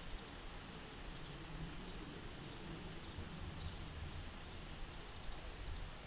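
Outdoor ambience: a steady high-pitched insect drone over a low rumble, with a few faint high ticks near the end.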